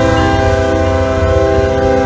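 Diesel locomotive air horn blowing one long, steady multi-note chord over the low rumble of passing Norfolk Southern diesel locomotives.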